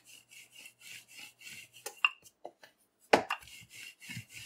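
Wooden rolling pin rolling out oil roti dough on a floured countertop: quick back-and-forth rubbing strokes, several a second, with a few sharper knocks, the loudest about three seconds in.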